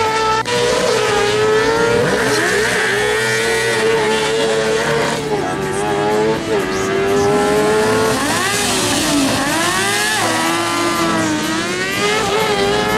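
Several kart cross buggies' motorcycle engines held at high revs on the start grid, one steady high-pitched note with revs swept up and down over and over, most of all in the second half.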